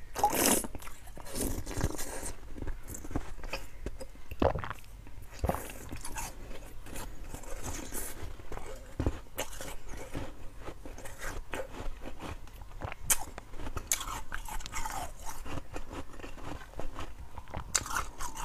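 Slushy ice being bitten and chewed in the mouth, close to a clip-on microphone: a run of sharp, irregular crunches, with the loudest bites near the start.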